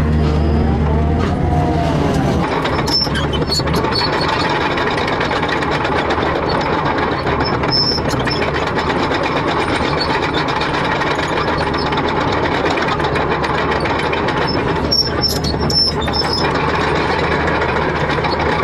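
Heavy machinery running steadily, with a few sharp clanks.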